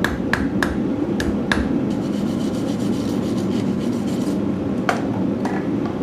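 Hand hammer striking a hot steel bar on the anvil, a run of blows in the first second and a half, then a fast scraping along the bar for about two seconds from a wooden-handled hand tool, and two light knocks near the end.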